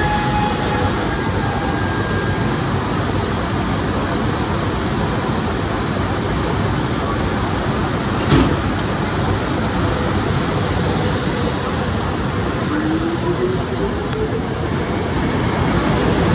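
SEPTA Silverliner IV electric multiple-unit cars rolling slowly past at close range: a steady rumble of wheels on rail, with one sharp knock about halfway and a short rising whine near the end.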